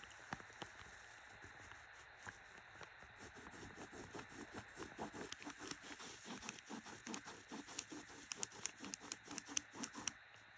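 Faint, quick scratching strokes of a pen drawing on paper. The strokes grow busier and louder from about four seconds in, then stop just before the end.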